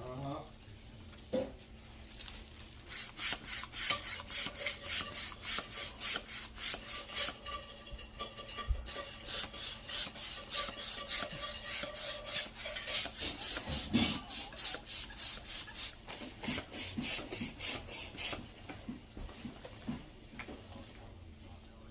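Rapid back-and-forth rasping strokes, like filing or scrubbing, about three to four a second, starting about three seconds in and stopping about fifteen seconds later.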